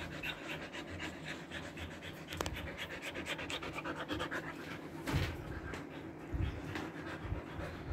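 Siberian husky panting rapidly and evenly, which the owner puts down to the heat even with the air conditioning on. A couple of soft thumps about five and six seconds in.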